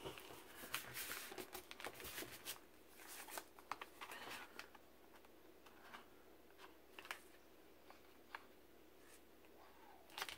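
Faint rustling and light clicking of paper being handled and pressed onto a kraft paper bag. The clicks and rustles are close together for the first few seconds, then thin out to a few scattered ticks.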